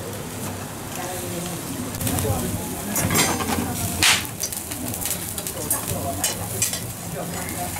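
Skewered eel fillets sizzling over a charcoal grill, a steady crackle with sharp pops and clicks scattered through it. The strongest pop comes about four seconds in.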